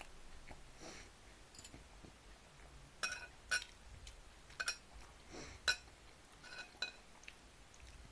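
Eating sounds from a homemade pizza meal at close range: a handful of sharp clicks and light clinks, irregularly spaced, starting about three seconds in.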